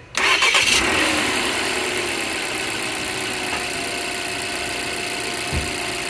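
2015 Volvo S60 engine starting with the fusible link in its battery-to-starter cable jumped out: the starter cranks for under a second, the engine catches suddenly, and it settles into a steady idle. The start shows the fault lies in the fusible link, which had been starving the starter of voltage so it only clicked.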